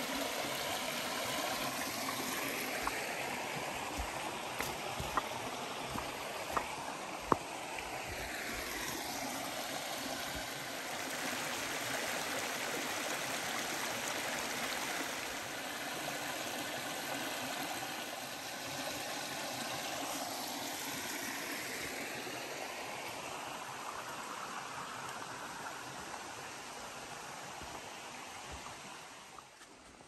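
Small creek waterfall rushing and splashing steadily. A few sharp taps come through it about four to seven seconds in, and the water sound eases off near the end.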